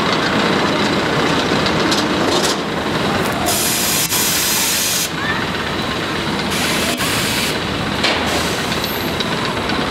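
Steel roller coaster running on its track: a steady rushing rumble, with stretches of louder hiss about a third of the way in and again near the end.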